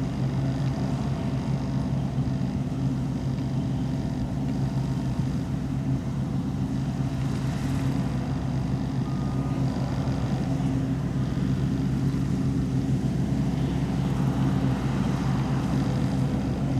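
Diesel engine of heavy harvest machinery running steadily at a constant pitch.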